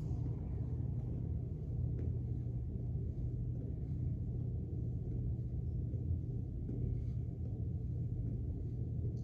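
Steady low hum with a faint rumble under it, even in level.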